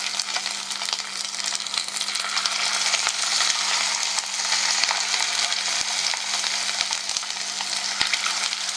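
Small cornflour-and-egg coated chicken pieces deep-frying in hot oil: a steady sizzle with many small crackles and pops.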